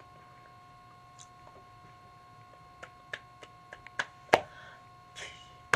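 Irregular light clicks and taps of a signer's hands meeting and brushing together, bunched in the second half with one sharper tap about a second before the end, over a faint steady electrical whine.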